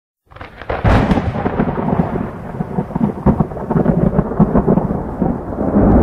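Thunder sound effect: a sharp crack about a second in, then a continuous low rumble with crackles.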